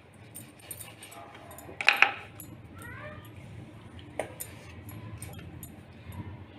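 Metal kitchen utensils and vessels clinking and knocking, with one loud ringing clatter about two seconds in.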